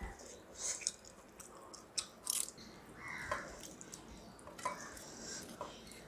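A person eating close to the microphone: soft chewing and wet mouth clicks, coming in scattered short bursts.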